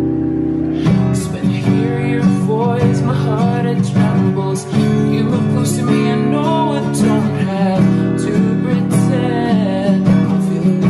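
Background music: a pop ballad with strummed acoustic guitar and a sung melody.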